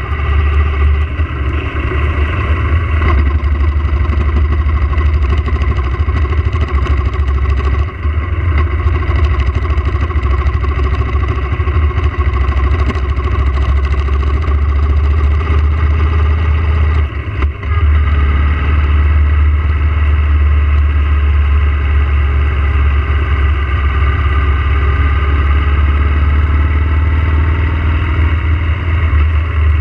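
Yamaha motorcycle engine running at road speed under a heavy low rumble, its pitch slowly rising and falling with the throttle. There is a brief drop in loudness a little past halfway.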